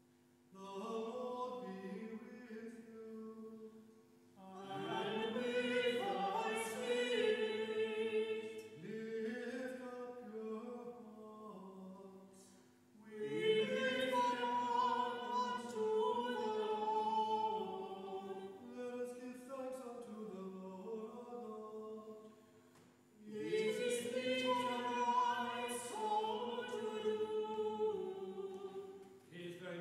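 A small church choir sings part of a Mass setting in long phrases. It opens softly, then fuller voices come in about four seconds in, with two short breath-breaks, near the middle and about seven seconds before the end.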